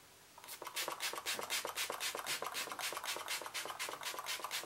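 Anastasia Beverly Hills Dewy Set setting mist pumped over and over, a short hiss of spray about four times a second, starting about half a second in.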